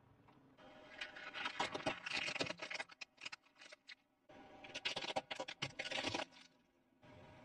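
Plastic toys cracking and crunching under a rolling car tyre, in two bouts of rapid snapping clicks, one about a second in and one about four seconds in.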